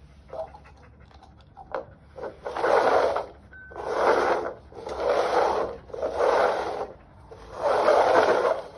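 Small plastic cups being shuffled by hand across a tile floor: five scraping slides, each about a second long.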